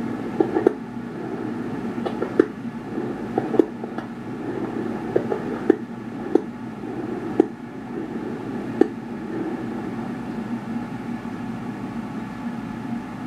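Fireworks going off: about a dozen sharp bangs and pops, irregularly spaced, over a steady background din; the bangs stop about nine seconds in.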